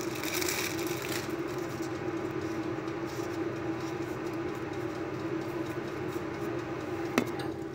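A steady machine hum with one strong low tone, like an appliance motor running. Light crinkling of a plastic bag in the first second, and a single sharp click near the end.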